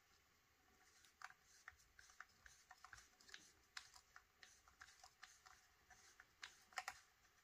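Faint, irregular small clicks and taps, several a second from about a second in, of a body screw and small parts being handled and fitted into a paintball marker's body.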